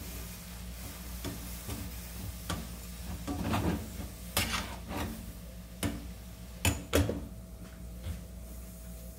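Light kitchen clatter: scattered knocks and clicks of dishes and utensils being handled, over a steady low hum, with two louder knocks a little past halfway.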